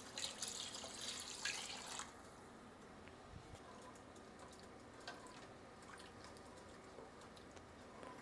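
Chicken stock poured from a glass measuring jug into a pot of broth for about two seconds, then faint taps and scrapes of a spatula stirring in the steel pot.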